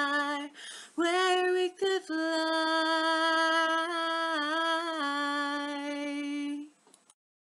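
The closing phrases of a song: a singer holds long notes with little accompaniment, breaking off briefly about a second in, and the voice stops about a second before the end.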